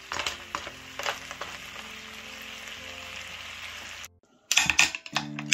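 Sea snails sizzling in a bubbling butter-garlic-chili sauce in a frying pan, with wooden spatulas clicking and scraping against the pan as they are stirred; the sauce is at a boil and the snails are cooked. The sizzling cuts off about four seconds in, and music starts shortly after.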